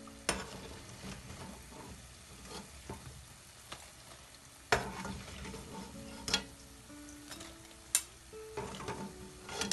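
Kala jamun dumplings deep-frying in hot oil with a steady sizzle, while a metal slotted spoon and wire strainer scrape and knock against the pan as the fried dumplings are lifted out. There are about five sharp metal clinks, the loudest a little under five seconds in.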